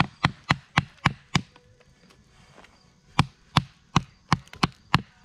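Batoning kindling: a wooden baton knocking on the spine of a knife blade driven into an upright stick, splitting it. A quick run of about six sharp knocks, a pause of almost two seconds, then another steady run at about three a second.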